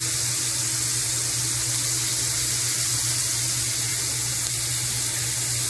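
Sliced peppers sizzling as they fry in a pan, a steady, even sizzle with a low hum underneath.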